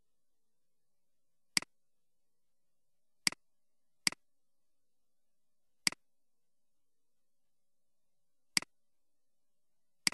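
Computer mouse button clicking six times at uneven intervals, each a short sharp click.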